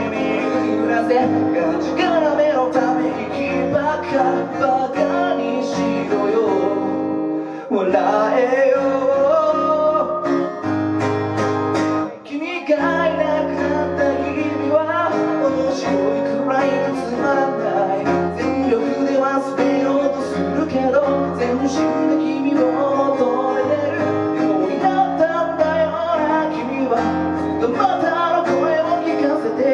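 Acoustic guitar strummed while a man sings along with it live. The sound drops briefly twice, about seven and about twelve seconds in.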